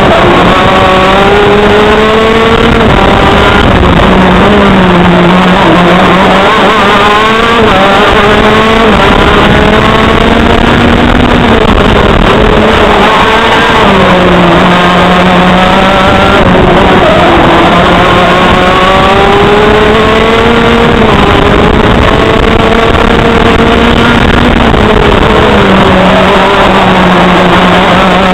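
TM KZ10C 125 cc single-cylinder two-stroke engine of a KZ gearbox kart at racing speed, heard onboard and very loud. Its pitch climbs steadily along each straight and falls back about five times as the kart slows for corners.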